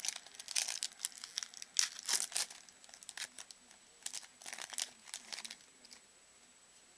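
Foil trading-card pack wrapper crinkling and tearing in quick irregular bursts as the pack is torn open and the stack of cards is pulled out. The crackling stops about six seconds in.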